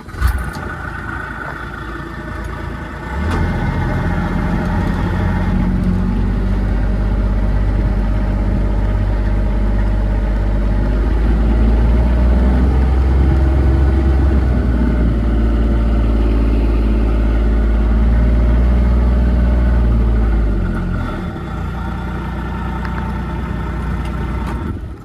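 A motor vehicle's engine running steadily. It grows louder about three seconds in, holds, and eases back about twenty seconds in.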